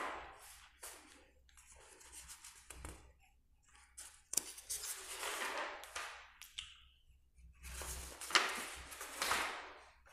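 Paper pages of a book being turned and rustling under a hand, in several irregular bursts with a few sharp flicks.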